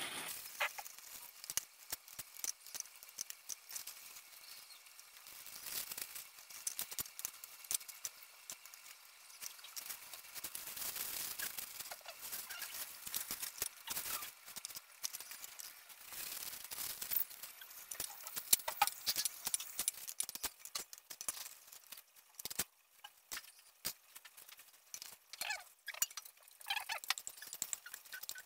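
Thin plastic food bags crinkling and rustling, with a metal spoon clicking and scraping in a metal pot, as cooked vegetables are scooped and bagged; many short sharp clicks over a crackly hiss.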